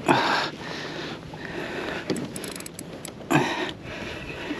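Spinning reel cranked against a hooked blackfish, with light ticking from the reel. Two loud, short sniffs stand out, one at the very start and one about three seconds in.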